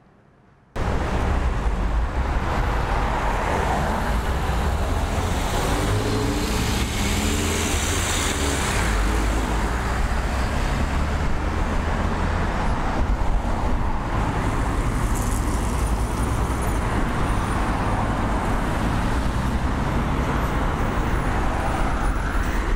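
Road traffic noise from a city street: a steady wash of passing cars and engines that starts abruptly about a second in.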